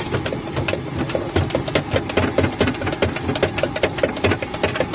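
A metal spoon beating fast against the inside of a metal tin as a food mixture is whisked, a steady run of clinks about five a second.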